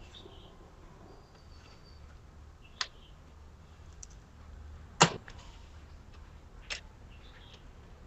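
Three sharp clicks, the middle one loudest, as a steel gear cable is threaded to a Shimano Tourney rear derailleur. Faint bird chirps sound in the background.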